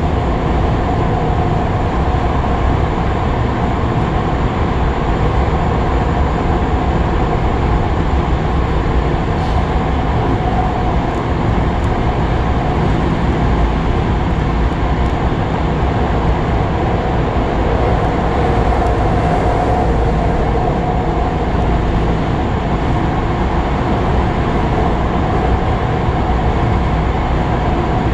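Kobe Municipal Subway 6000 series electric train running through a tunnel between stations, heard from inside the car: a loud, steady rumble of wheels and running gear with a steady hum over it.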